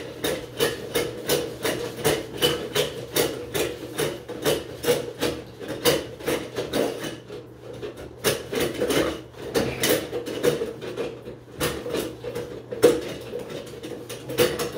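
Handheld drum auger being cranked while its steel snake cable is fed down a bathtub overflow drain: a rapid, uneven run of clicks and knocks, several a second, as the spinning cable rattles against the drum and the drain pipe while trying to find its way into the line.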